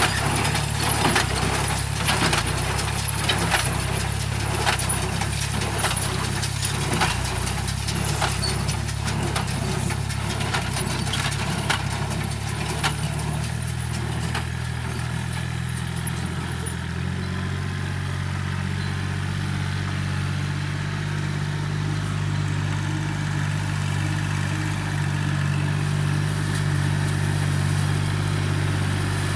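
Tractor engine running while pulling a rice-straw baler, with rapid irregular clicking and knocking from the baler over roughly the first half. About 17 seconds in the knocking dies away and the engine settles into a steadier, fuller note.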